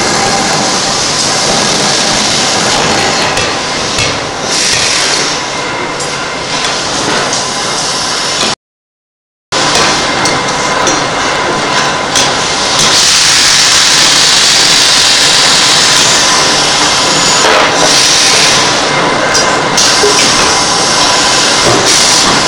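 Large industrial pneumatic forging hammer working a glowing steel workpiece: a dense, continuous din of ram blows and hissing air. The sound cuts out completely for about a second partway through, then resumes.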